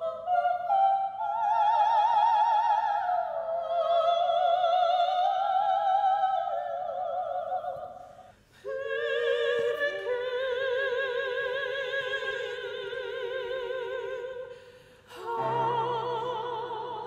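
Operatic soprano singing long held phrases with wide vibrato. The line breaks briefly about eight seconds in and again near the end, where a new note starts with low steady notes beneath it.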